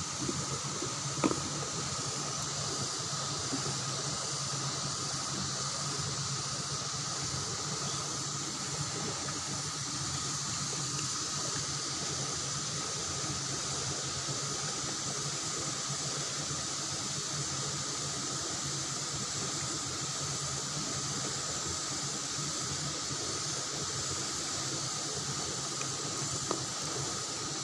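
Steady rush of fast-flowing river water, with a steady high drone over it and one short click about a second in.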